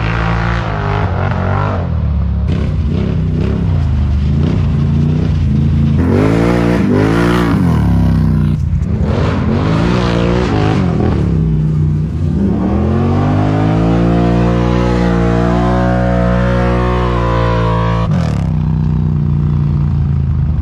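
Can-Am Outlander XMR ATV V-twin engines revving hard while racing, pitch swinging up and down with throttle and shifting. About two-thirds of the way in, one long steady climb in pitch, then a drop near the end.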